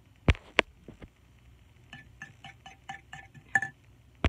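A utensil knocking and clinking against the bowl while stirring instant noodles: two sharp knocks at the start, then a run of quick ringing clinks, about four a second, the loudest near the end.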